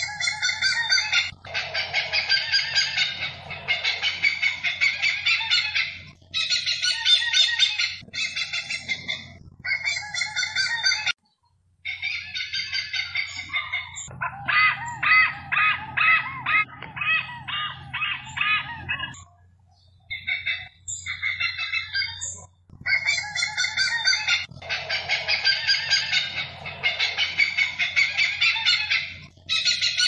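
Hornbills calling: bouts of rapid clucking notes, each a second or two long, repeated with short breaks. The sound cuts out abruptly for a moment about a third of the way through.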